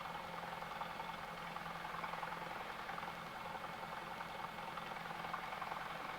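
Cessna 172's piston engine idling steadily, a low hum.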